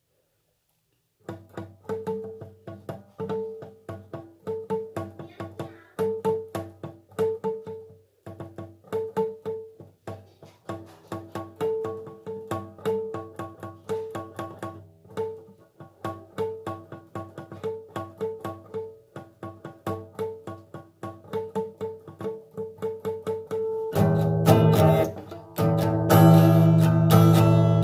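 Acoustic guitar playing an instrumental tune, starting a little over a second in with single picked notes. Near the end it switches to louder, fuller strumming.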